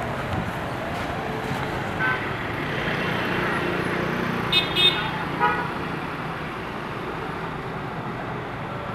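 Busy street traffic, with the steady noise of passing vehicles and several short horn toots about halfway through.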